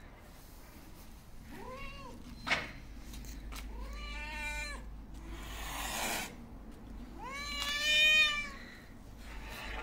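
A hungry stray cat meowing three times, each meow rising and then falling, the last the loudest and longest, with a short hiss between the second and third meows. A single sharp click comes about two and a half seconds in.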